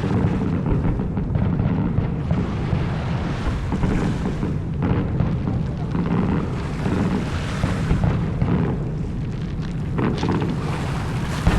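Fireworks going off in a dense, continuous barrage of booms and crackles, with no gap between bursts.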